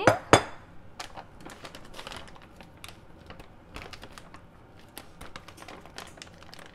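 Plastic bag of frozen blueberries being handled, crinkling with irregular crackles and clicks, after two sharp knocks right at the start.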